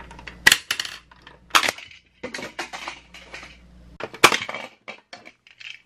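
Hard plastic clicks and clatter from a toy Mack hauler truck, its trailer's rear door and ramp being worked. There are three sharp snaps, about half a second, a second and a half and four seconds in, with lighter rattles between them.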